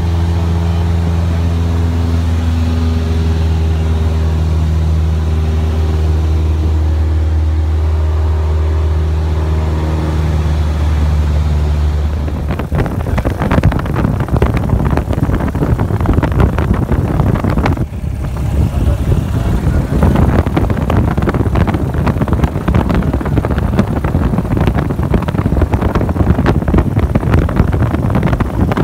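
Single-engine light aircraft's piston engine running steadily with a low hum, heard from inside the cabin. About twelve seconds in, the sound changes abruptly to a louder, rough, fluctuating noise.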